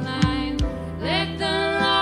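A worship song played by a live band: a woman singing lead over bass guitar, keyboard and drums.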